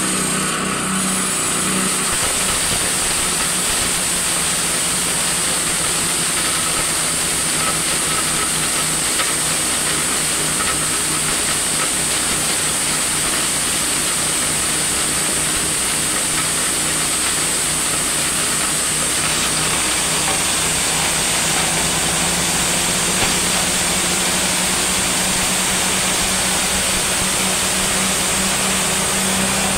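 Small engine driving a multifunction chopper-grinder, running steadily at speed while material is fed into the hopper and milled, with a constant hiss from the grinding chamber over the engine's hum.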